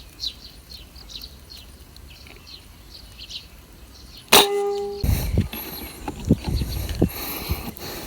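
Small birds chirping faintly, then a single sharp shot from a PCP air rifle about four seconds in, with a short ringing tone after it. Knocks and rustling follow.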